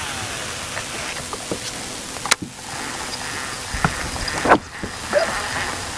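Steady rushing of wind and water around a bass boat, with light clicks and two sharp knocks on the boat, one about two seconds in and a louder one about four and a half seconds in.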